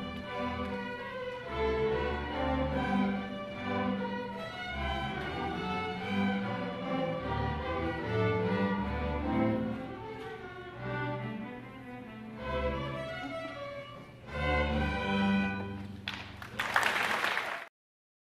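Student string orchestra of violins, violas, cellos and basses playing a piece, with a strong low bass line. Near the end a loud rushing noise rises for over a second, and then the sound cuts off abruptly.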